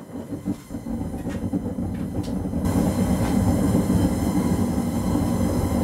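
Graham Forge 100,000 BTU propane burner running in a newly built gas forge on its first firing: a steady rumbling rush of burning gas that grows louder and fuller about two and a half seconds in.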